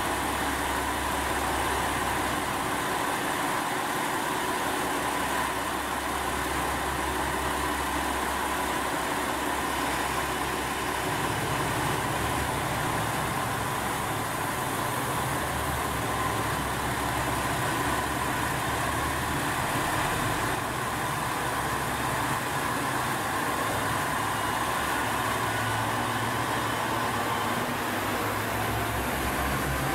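KiHa 47 diesel railcars idling at the platform: a steady diesel engine rumble with a constant hum, the low engine note shifting about eleven seconds in.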